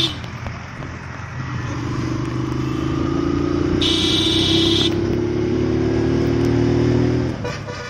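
A motorcycle running along a road, engine hum and road noise with the engine's pitch rising slowly as it gathers speed. A high horn honks for about a second near the middle.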